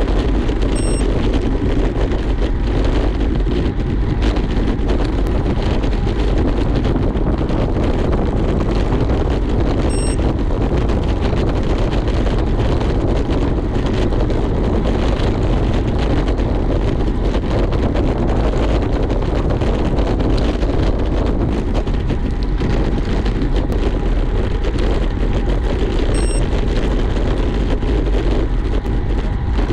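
Steady wind rushing over the microphone, mixed with road noise, as from a camera on a road bike ridden at speed.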